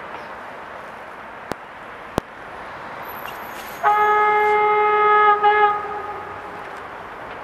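Horn of an approaching train: one loud single-note blast of about two seconds, breaking into a couple of short toots at its end.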